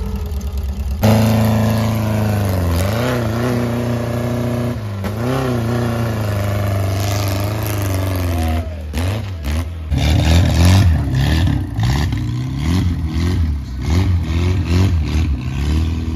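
Off-road buggy engine revving hard under load on a steep dirt climb, its pitch swinging up and down as the throttle is worked. The revving turns choppier and faster in the later part.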